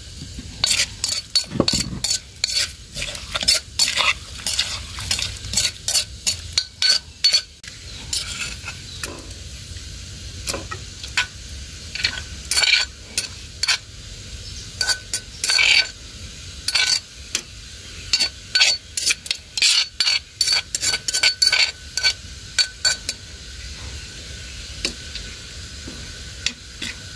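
Metal spoon scraping and clinking against the inside of a mortar in irregular strokes, stirring a pounded clam salad and scooping it out onto a plate. Some strokes leave a short metallic ring.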